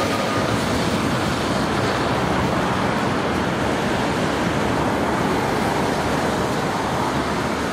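Steady, even rushing noise of outdoor city ambience: wind and distant traffic, with no distinct events.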